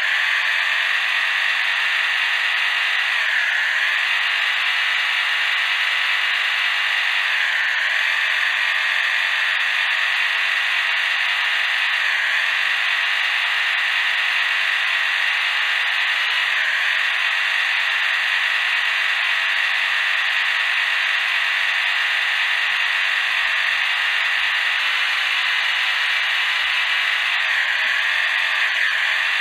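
Steady high-pitched whine of a 1:32 RC crawler's stock electric motor and geartrain, heard close up from a camera mounted on the car. The pitch dips briefly every few seconds as the motor slows and picks up again.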